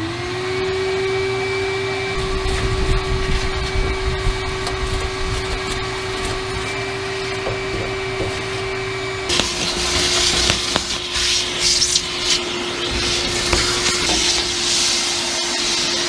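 Vacuum cleaner running steadily, sucking up old, wet blasting media from a sandblast cabinet. About nine seconds in, a louder hiss with crackling joins the motor's steady hum.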